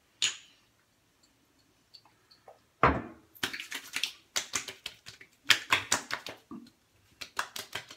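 Hands slapping and patting splash-on aftershave onto the face and neck: a quick, irregular run of sharp skin pats, with a heavier thump about three seconds in.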